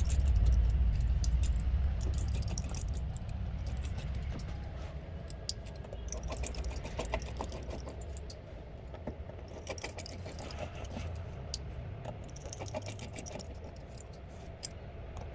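Scattered light clicks and ticks of small repair tools on an opened iPhone 7 Plus as its internal screws are undone, over a steady low rumble.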